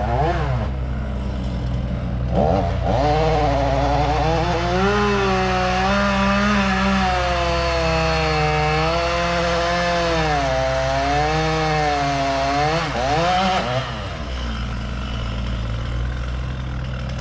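Chainsaw cutting into a dead ash tree, its engine pitch rising and falling repeatedly as the chain loads up in the wood. The cutting stops about three-quarters of the way through, leaving a steady low engine hum that runs underneath throughout.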